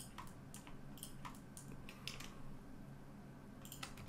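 Scattered, faint computer keyboard and mouse clicks: several in the first two seconds, a pause, then a few more near the end, over a steady low hum.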